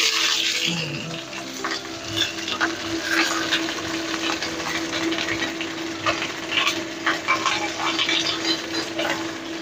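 Fish halves frying in a little oil in a nonstick wok, the oil crackling and spattering steadily. A spatula scrapes and turns the fish briefly near the start.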